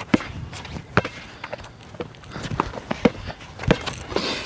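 Basketball game play: irregular thumps of a basketball bouncing on the court, mixed with players' running footsteps.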